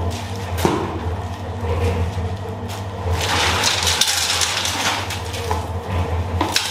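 Small concrete mixer running with a steady motor hum, its drum churning wet concrete with scraping, sloshing swells and the odd clack.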